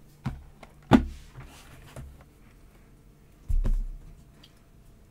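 Sealed cardboard trading-card boxes being handled and moved on a tabletop. There is a sharp knock about a second in, a few lighter clicks, and a dull thud about three and a half seconds in as a box is set down.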